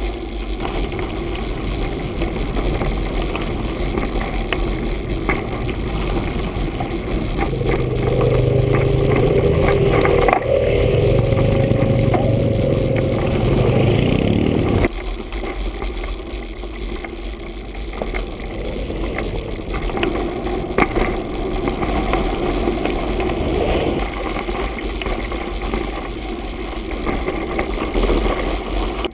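Mountain bike rolling over a gravel forest path, with wind on the camera and scattered rattles and knocks from bumps. From about 8 seconds in, quad bike (ATV) engines run close by, louder than the riding noise, then cut off suddenly about 15 seconds in.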